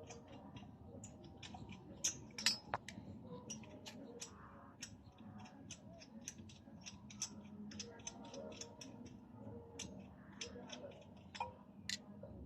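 Scattered light metallic clicks and clinks from hand tools and small metal parts being handled, several a second at irregular intervals.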